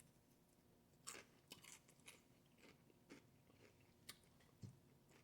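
Faint close-up chewing: soft crunches and wet mouth clicks at irregular intervals, about every half second.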